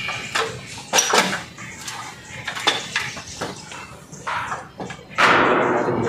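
Irregular knocks and clanks from climbing a step ladder and handling a stainless steel water tank, with a louder rushing noise a little after five seconds in.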